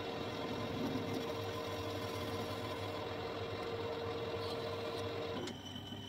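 Metal lathe running with its chuck spinning and no cut being taken: a steady machine hum with a held tone. About five and a half seconds in the lathe is switched off and the hum falls away as the chuck spins down to a stop.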